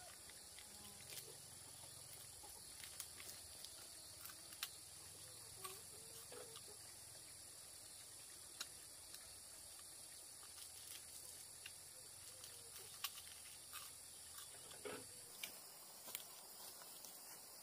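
Faint outdoor ambience of insects chirring steadily at a high pitch, with scattered small clicks and a faint short call now and then.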